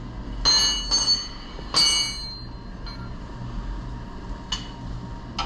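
Metal hand tools striking metal, three clanks with a bright bell-like ring in the first two seconds, then two lighter clicks near the end, over a steady low hum.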